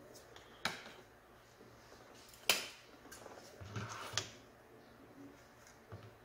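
A few sharp knocks and clunks as a desktop motherboard is shifted about on a work mat and handled with tools. The loudest comes about two and a half seconds in, with a cluster of smaller ones around four seconds.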